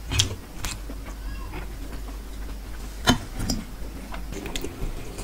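Close-up hand-eating sounds: a handful of sharp wet clicks and smacks from the mouth and from fingers working rice and crunchy fried topping on a steel plate, over a steady low hum.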